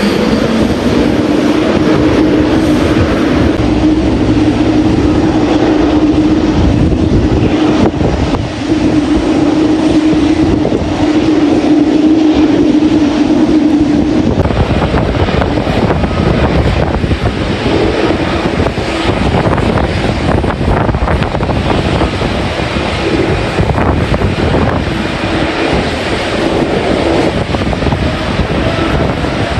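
GE GEnx-1B jet engines of an Air India Boeing 787-8 running at takeoff power, a continuous roar with a steady humming tone that fades about halfway through. Wind buffets the microphone throughout.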